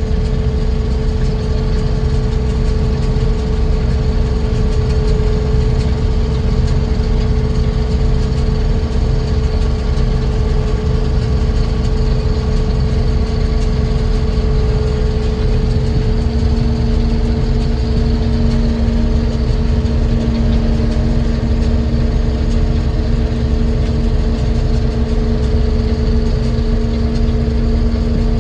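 Combine harvester running steadily, a deep rumble with a constant hum over it; a second, lower hum comes in strongly a little past halfway.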